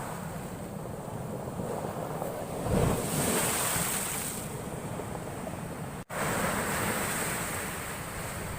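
Heavy ocean surf crashing and washing in, with wind buffeting the microphone; the wash swells about three seconds in and again just after a brief dropout about six seconds in.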